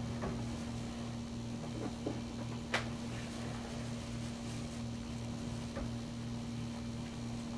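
A steady low hum, with a few faint clicks and one sharp click nearly three seconds in.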